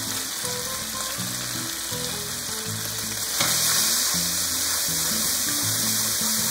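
Oil and sauce sizzling in a hot wok while a wooden spatula stirs them. The sizzle grows louder a little past halfway, with a brief click as it rises, under background music.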